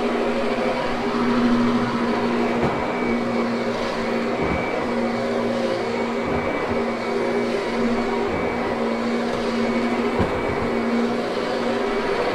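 Kirby upright vacuum cleaner running steadily as it is pushed over carpet, a constant motor hum over a wide rushing noise, with a few faint knocks.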